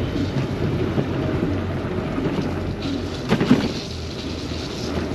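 Wind buffeting the microphone and tyre hiss on wet tarmac while riding an electric bike, with a couple of brief knocks about three and a half seconds in.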